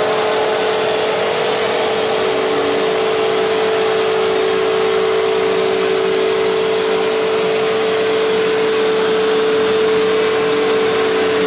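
Fantom Fury upright vacuum cleaner running steadily with a strong, even motor whine as it is pushed over carpet, sucking up pine-pellet cat litter.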